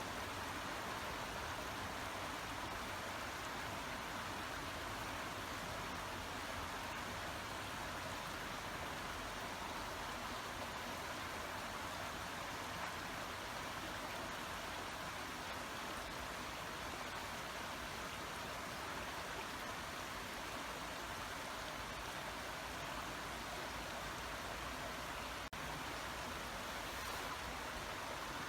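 A small brook babbling over stones: a steady rush of running water.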